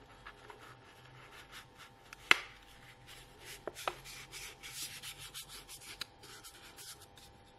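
Thick card paper being folded in half and its crease pressed down by hand: faint, scattered rubbing and rustling of the card, with one sharp click a little over two seconds in.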